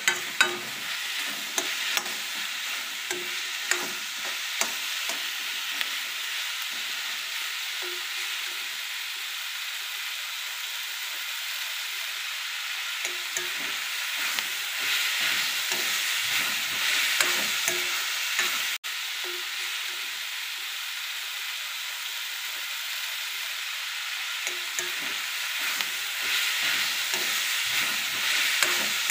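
Chopped onions, tomatoes, garlic and green chillies sizzling steadily in hot oil in a kadai over a medium gas flame. A steel spoon clinks and scrapes against the pan about once a second in the first few seconds.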